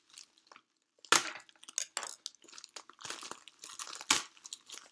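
Packaging crinkling and tearing as a mail package is opened by hand: irregular crackles, the loudest about a second in and again about four seconds in.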